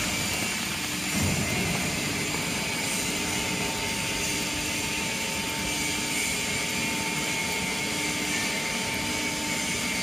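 Enerpat automatic metal swarf baler's hydraulic power unit running with a steady drone and a held whine as the press gate lifts off a compacted block of swarf, with a brief low surge about a second in.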